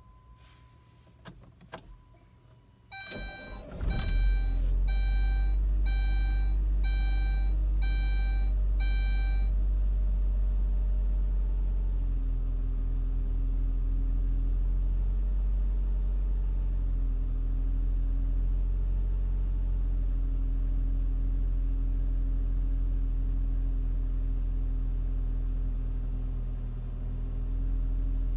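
A 2002 Saab 9-3's engine cranked briefly by the starter and catching about three seconds in, then idling roughly, its pitch and level wavering now and then. A dashboard warning chime beeps seven times, about once a second, as the engine starts.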